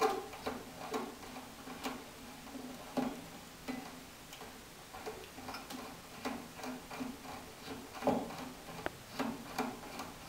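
Classical guitar tuning machine being turned to slacken and unwind a nylon string: irregular small clicks, about two a second, over a faint low tone.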